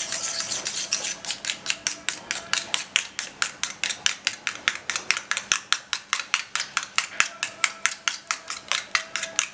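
Steel spoon whisking beaten egg in a stainless steel bowl, clinking against the bowl in a fast, steady rhythm of about five or six strokes a second.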